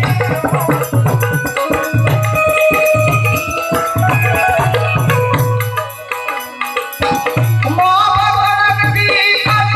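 Instrumental passage of Gujarati devotional folk music (santvani): held melody notes over a steady hand-drum beat, with rattling cymbal or shaker percussion. The drum drops out for about a second around six seconds in, then the beat comes back.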